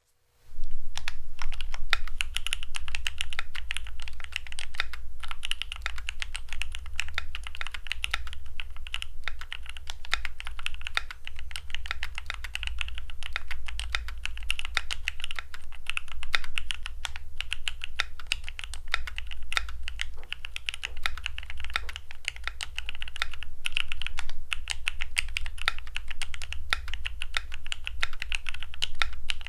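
Continuous fast typing on a Vortex M0110A mechanical keyboard with G Pro Silver 2.0 linear and Baby Kangaroo tactile switches, FR-4 plate and Poron/IXPE foam. The typing starts about half a second in and goes on as a dense run of keystrokes, over a low hum of office background noise.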